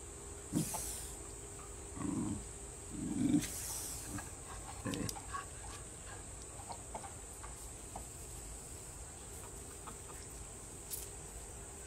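A few brief low animal calls in the first five seconds, then only faint scattered ticks over a steady faint hum.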